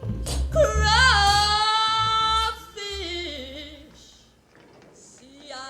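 The closing of a jazz-blues song: a singer holds one long note with a wavering pitch over the band's final chord. The band stops, and the voice slides down and fades away. A quieter sung phrase begins near the end.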